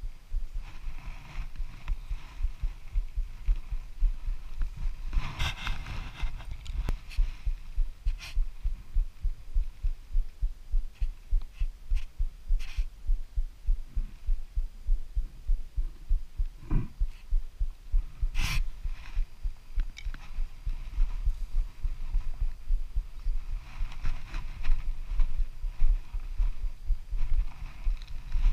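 Rapid, irregular low thumping on the camera's microphone, with a few sharp clicks and rustles from handling, the loudest click about two-thirds of the way in.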